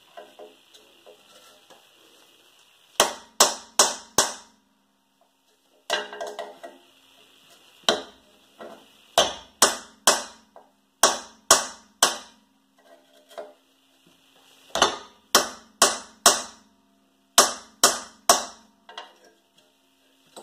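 Heavy hammer blows on the steel rear wheel hub of a 2010 Toyota Prius, metal on metal with a short ring after each strike, in bunches of three or four about half a second apart. The hub is seized in the knuckle and not budging.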